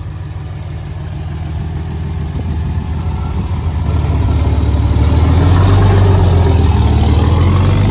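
Gasoline engine of a lifted pickup truck on large off-road tyres pulling away, a low rumble that swells about halfway through as it accelerates.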